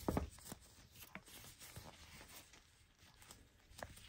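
Faint rustling and handling noises as disposable plastic gloves crinkle against a fabric cloth being stretched over a steamer pot, with a few soft clicks, the loudest right at the start.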